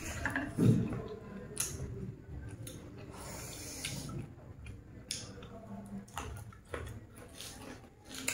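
Eating sounds: chopsticks clicking against a metal tray and bowls, scattered light taps, and chewing, with a short low sound about a second in.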